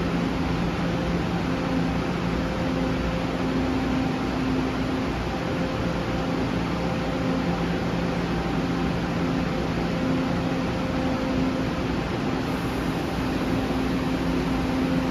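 TEMU1000 Taroko Express electric train, a steady mechanical hum and rumble with a low buzz that fades in and out at one fixed pitch. The buzz is questioned as a possible abnormal pantograph noise.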